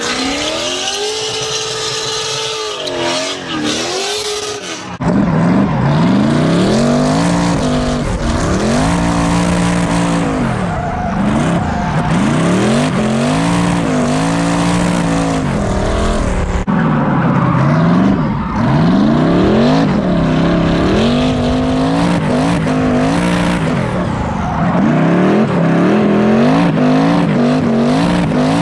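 Drift car engine revving up and falling back over and over as the car slides, with a hiss of tyre squeal on top. About five seconds in the sound gets louder and closer as it switches to inside the car, where the revs rise and drop every second or two.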